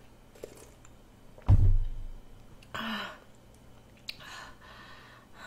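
A dull thud about a second and a half in as a milk carton is set down on the table, then a short throaty exhale after a swig of milk, and soft breaths near the end.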